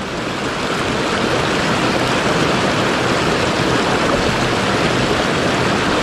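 Rushing water of a mountain stream, a steady even wash over rocks.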